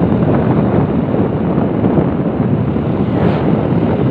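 Motorcycle engine running steadily at cruising speed, with heavy wind rush on the rider's microphone.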